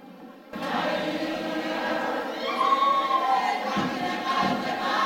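A large group of voices singing together in chorus, starting suddenly about half a second in.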